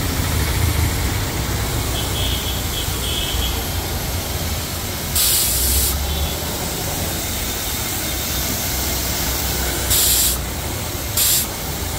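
Foam tank's spray lance shooting a steady jet of soap foam with a continuous hiss over a low rumble. Three short, louder bursts of hiss come about five seconds in and twice near the end.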